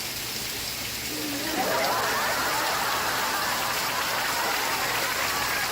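Steady rain noise. About a second and a half in, a sitcom studio audience's laughter swells over it and carries on.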